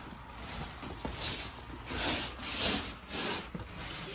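Swishing rubs of an inflatable dinosaur costume's fabric, several in a row from about a second in, over the low steady hum of its blower fan.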